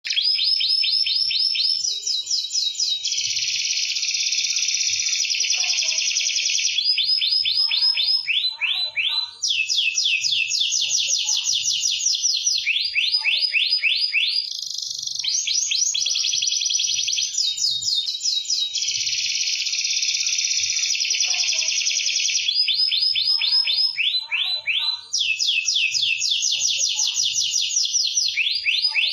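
Domestic canary singing nonstop: high, fast rolling trills and chattering phrases, one run straight after another with barely a pause.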